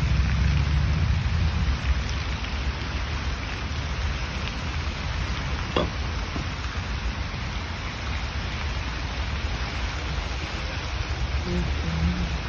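Park fountain's water jets splashing into the basin, a steady rain-like hiss, under a low rumble.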